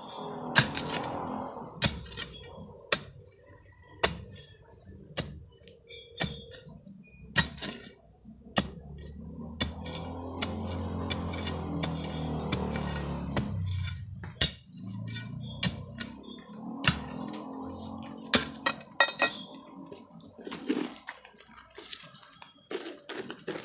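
A metal digging tool striking soil and stones while digging out an ube tuber: sharp, irregular clinks and knocks, several a second at times. A low, steady drone rises and fades from about ten to fourteen seconds in.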